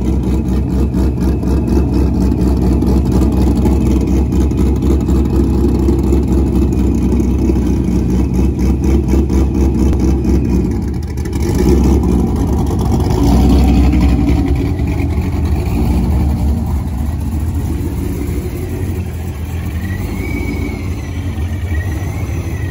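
The built, ProCharger-supercharged 2002 Corvette Z06's V8 idling after a cold start through its quad exhaust, with a choppy, pulsing beat. It gets louder for a few seconds about halfway through, then settles to a steadier idle.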